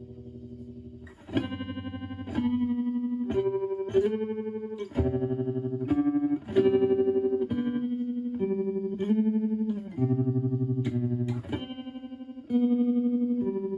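Clean electric guitar (Stratocaster with HSH pickups) through a Joyo JF-09 analog optical tremolo pedal set to its fastest rate at intensity 4, so each note's volume flutters quickly and evenly. A held note fades out over the first second, then single notes and double-stops are picked about once a second.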